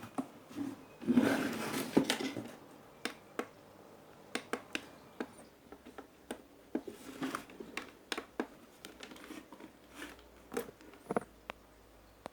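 Scattered small clicks, taps and a short rustle from hands handling tools and parts on a repair bench.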